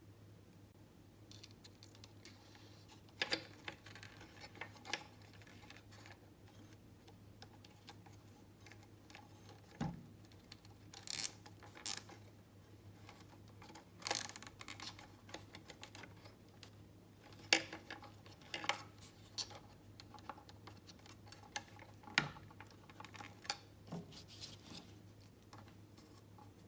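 Scattered clicks and light metallic clinks of small hand tools being picked up and used while a replacement capacitor is fitted to a circuit board, over a faint steady hum.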